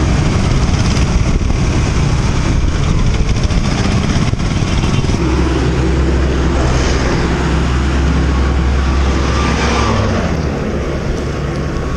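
Motor vehicle noise: an engine running, with a steady low hum that starts about five seconds in.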